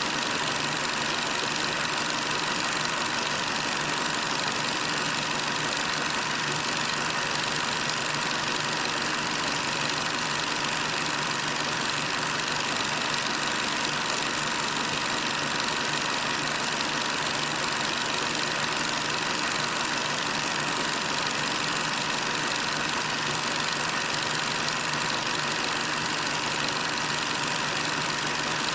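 Steady, unchanging hiss with a faint hum: the background noise of an old film soundtrack.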